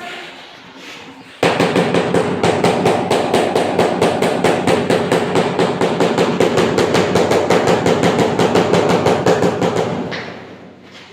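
Rapid, regular knocking, about six strokes a second, that starts suddenly and fades out near the end.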